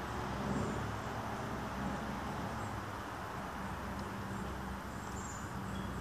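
Steady low rushing background noise with a faint low hum underneath.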